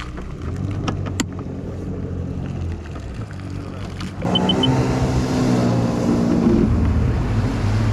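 Four-stroke personal watercraft engine idling low, then opened up about four seconds in: the engine note rises and gets louder, with a rushing hiss of water and spray as the craft accelerates. A sharp click about a second in, and three short high beeps as it speeds up.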